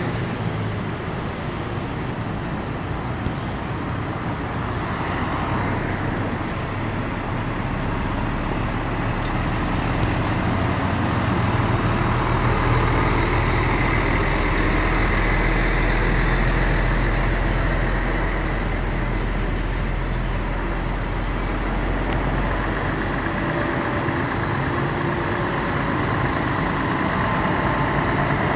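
Heavy tractor-trailer trucks running past with engine rumble and road noise. The deep engine rumble grows louder in the middle as one flatbed trailer goes by close, then eases off as the next truck comes up.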